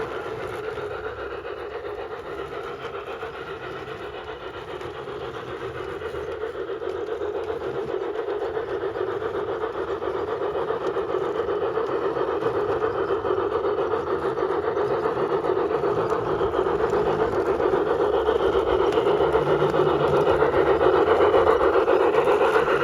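LGB G-gauge model train running on its track, a steady mechanical hum from the motor and gearing that grows steadily louder over the second half as the train draws closer.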